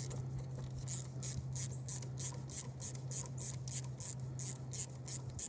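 Socket ratchet clicking in quick, even strokes, about four clicks a second, as the clamp bolts on a corroded battery cable end are loosened, over a steady low hum.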